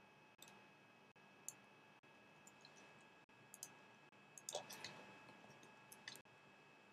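Faint computer mouse clicks: single clicks about once a second, with a quick run of clicks about four and a half seconds in, over low room hiss and a faint steady whine.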